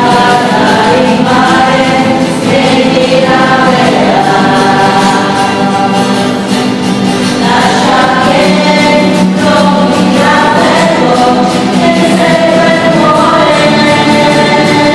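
Choir singing a hymn, several voices together in slow, held notes.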